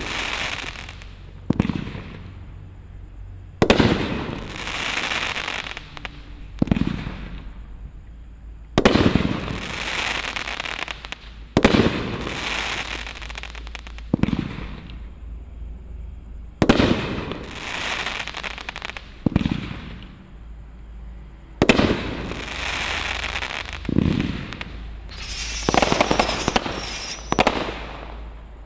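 Consumer fireworks cake firing shot after shot. Sharp bangs come every few seconds, each followed by about two seconds of crackling. Lower thuds fall between them, and a busier run of bangs and crackle comes near the end.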